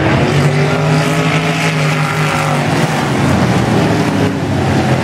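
A pack of dirt-track stock cars racing past at full throttle, several engines running together, the pitch of the nearest one rising and then falling as it goes by.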